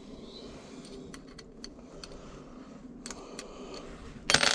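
Small metal clicks and ticks as bolts are handled and threaded by hand into a Brompton chainring, with a brief, louder burst of noise near the end.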